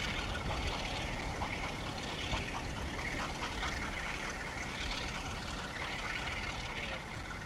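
Steam locomotive exhaust beats from BR Pacific No. 70000 Britannia pulling a train away, with a Class 47 diesel on the rear, heard through a steady hiss of wind and rain. The staccato beat is taken by the uploader as a sign of slight assistance from the diesel at the rear.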